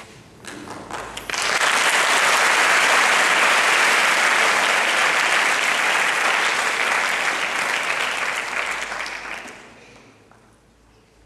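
Audience applauding: a few scattered claps at first, then full, steady applause for about eight seconds that dies away near the end.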